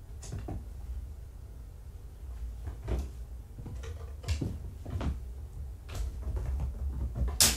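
Kittens playing among toys and cat furniture: scattered light knocks and taps, about a dozen over several seconds. A louder burst of rustling noise comes near the end.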